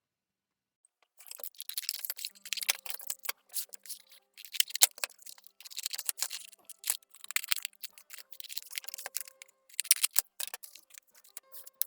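Rapid, irregular clicking, crackling and clattering of workbench parts and packing being handled, starting about a second in, with faint music tones underneath.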